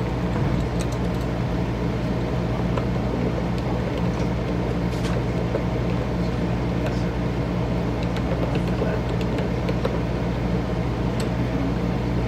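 Steady low mechanical hum, like a running machine or fan, with a few faint clicks of parts being handled.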